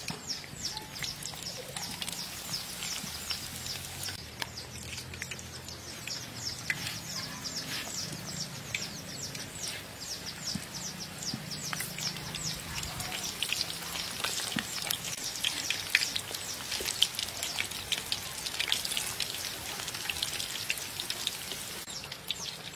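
Hot oil crackling and sizzling in a wok, a dense, rapid patter of small pops.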